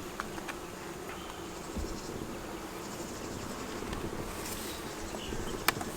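Honeybees buzzing steadily as a steady hum around the open hive during a frame-by-frame inspection, with one sharp click near the end.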